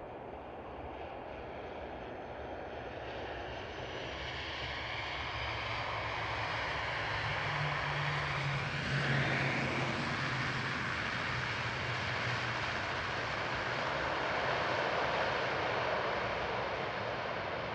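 ATR 72-600 turboprop airliner landing and rolling out on the runway, its two Pratt & Whitney PW127 turboprops and propellers running. The sound grows steadily louder as the aircraft approaches, with a low propeller drone. It is loudest about nine seconds in as the aircraft rolls past close by, then stays loud as it continues down the runway.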